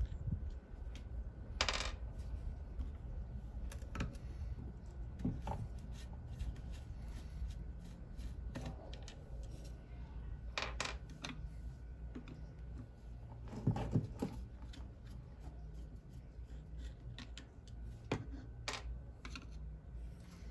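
Light clicks and clinks every few seconds as small carburetor parts and tools are handled during carburetor disassembly, over a faint steady hum.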